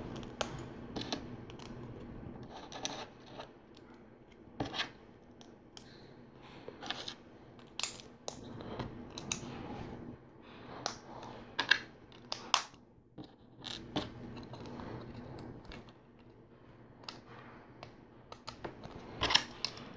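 LEGO plastic bricks clicking and clattering as pieces are picked up and pressed together: irregular small clicks and light rattles, with a few sharper snaps around the middle.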